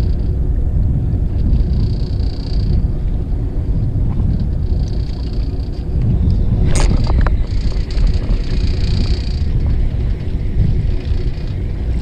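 Steady low rumble of a fishing boat's engine idling, with a single sharp click about seven seconds in.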